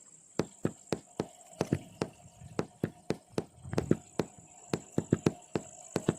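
A steady run of sharp knocks, about four a second, over a faint high steady tone.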